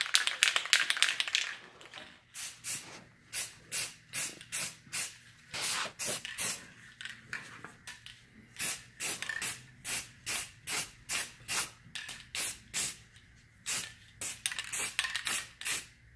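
Aerosol can of black spray paint spraying in short, repeated hissing bursts, about two to three a second, with a few brief pauses.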